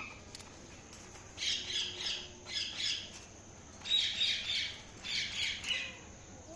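Indian ringneck parakeet squawking in four short bursts of rapid chirping notes, in two pairs.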